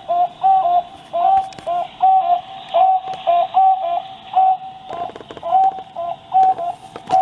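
A pair of toucan barbets singing together: a steady run of short, hooting notes at about three a second. The recording is played back through a book's small built-in audio player.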